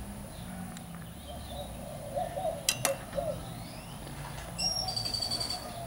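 Outdoor ambience with birds calling, including a short high chirp a little before five seconds in. A pair of sharp clicks comes just before three seconds in.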